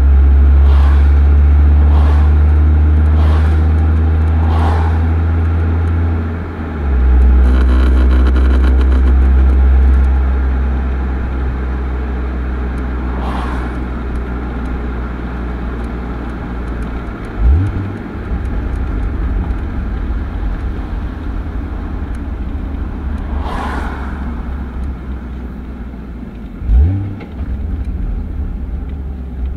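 Exhaust note of a stock Toyota Supra 2.5GT's twin-turbo straight-six, a steady low drone in gentle driving with upshifts at about 1500–1900 rpm. The note dips and changes about seven seconds in, and two brief rises in pitch come later.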